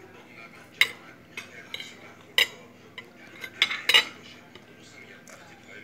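Metal cutlery clinking and scraping against a plate while eating rice and chicken: a few sharp clinks about a second in and at about two and a half seconds, with the loudest cluster of clinks near four seconds in.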